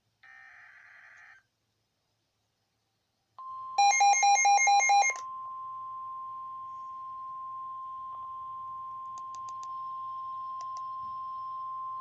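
Last burst of an EAS/SAME digital header: a short buzzy data squawk. After about two seconds of silence comes the steady 1050 Hz NOAA Weather Radio warning alarm tone, with loud rapid beeping over its first second or so.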